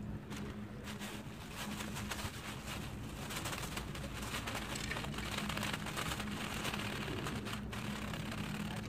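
Water lapping and splashing against the rocks of a breakwater, a steady wash of noise with small crackles, over a steady low hum.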